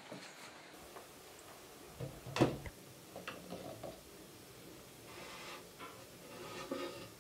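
Faint clicks and knocks, with one sharp knock about two and a half seconds in.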